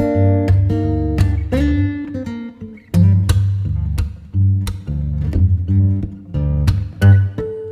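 Background music led by plucked and strummed guitar over a bass line, with notes struck every half second or so.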